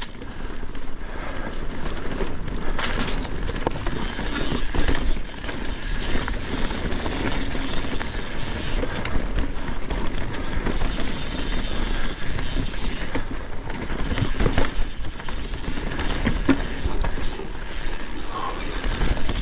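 Mountain bike descending a dirt trail: tyres rolling over the ground, with the chain and bike parts rattling and clicking over bumps and wind rumbling on the microphone.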